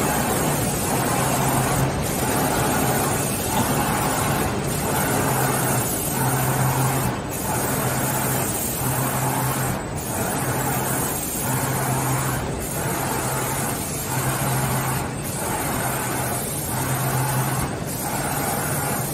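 Steady machinery noise from a fiber cement board UV coating line's conveyors. A low hum switches on and off in a regular rhythm, and the whole noise dips briefly about every two and a half seconds.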